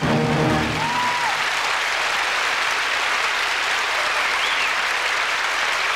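Large theatre audience applauding steadily as a song's final note dies away in the first second.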